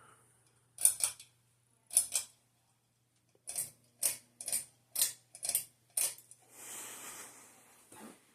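Sharp clicks, several in close pairs, a dozen or so over about five seconds, likely the pull-chain switch of a Hampton Bay Holly Springs ceiling fan being worked. A faint low steady hum under them stops about six and a half seconds in, and a hiss lasting about a second follows.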